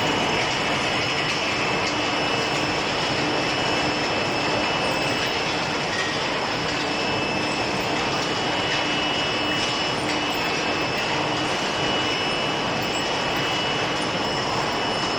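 Steady machinery noise from an induction-heated steel ball hot-rolling line, an even rush of noise with a steady high-pitched whine over it and a faint low hum that comes and goes.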